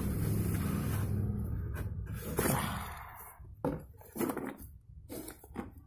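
Cardboard box and its paper contents handled by hand: a scraping rustle for the first two seconds or so, then a few short knocks and taps.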